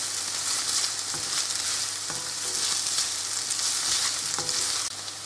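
Diced chicken breast, onion and garlic sizzling in hot oil in a non-stick wok, with a spatula stirring and scraping through them in a few light knocks. The sizzle drops quieter near the end.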